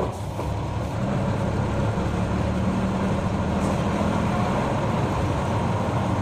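City route bus under way, heard from inside the cabin: the diesel engine and drivetrain running with a steady drone and road noise.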